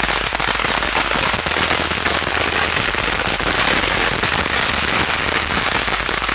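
A string of firecrackers going off in a rapid, unbroken crackle of sharp bangs.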